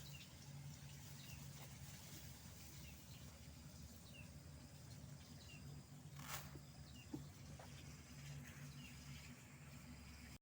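Faint outdoor ambience with small chirps repeating about once a second, typical of birds, over a low steady hum. There is a brief rustle about six seconds in and a single click a second later.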